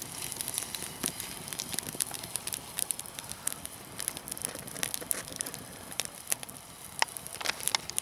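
Campfire of burning twigs crackling, with frequent sharp, irregular pops.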